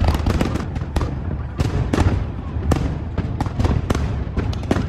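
Aerial firework shells bursting in quick succession: many sharp bangs and crackles, several a second, over a steady low rumble.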